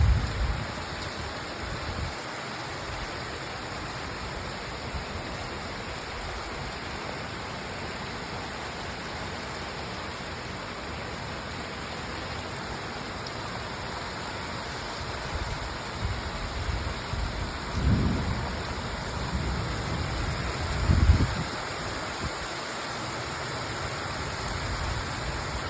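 Moderate rain falling steadily, with wind gusting against the microphone in low buffeting surges, two stronger ones about three-quarters of the way through.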